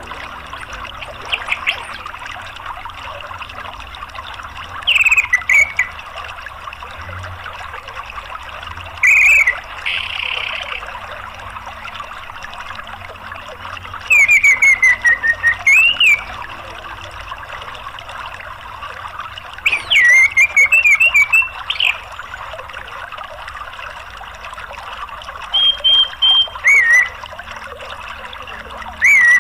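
Orange-headed thrush song, six short bursts of quick whistled notes that slide up and down, spaced a few seconds apart, over a steady rush of flowing water.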